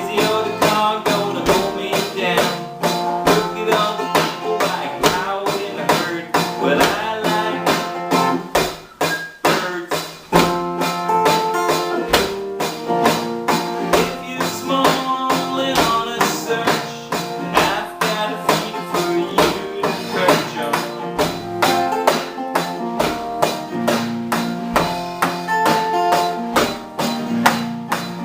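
Live music: a guitar playing over a steady percussive beat, with a brief lull about nine seconds in.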